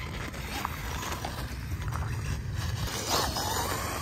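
Losi Promoto-MX 1/4-scale RC dirt bike's electric motor whining as it rides on loose gravel, its pitch wavering and swooping up about three seconds in, over a steady low rumble of wind on the microphone.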